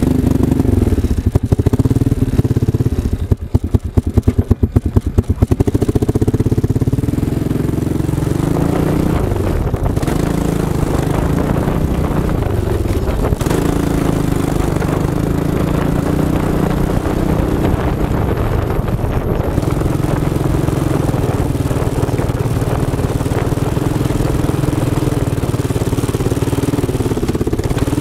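ATV engine running close up as the quad rides along a dirt trail. It is uneven and pulsing for the first few seconds, then steady, its pitch rising and falling with the throttle.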